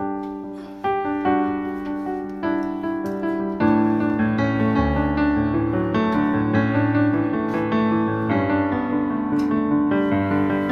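Background piano music, single notes at first, filling out with low bass notes about four seconds in.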